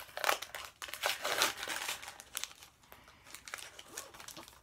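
A sticker packet wrapper being torn open and crinkled by hand. The louder crackling comes in two clusters in the first second and a half, then fainter crinkling follows.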